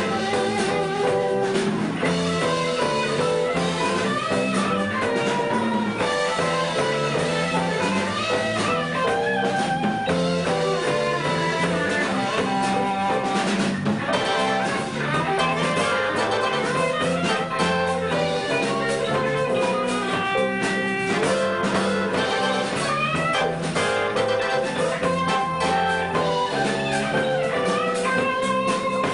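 Live band playing an instrumental number: a guitar lead over drum kit, bass and keyboards.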